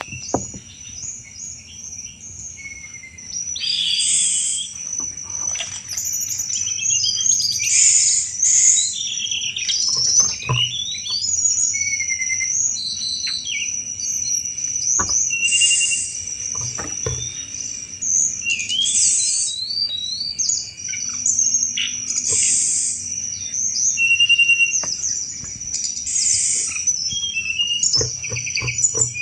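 Tledekan gunung songbird singing energetically: a rapid stream of high chirps, trills and chattering phrases, broken by short pauses, over a steady high whine.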